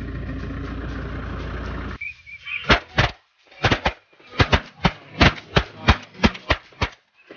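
A vehicle engine idling steadily for about two seconds. After an abrupt cut comes a rapid run of loud, short, sharp quacking calls, about four a second in uneven clusters.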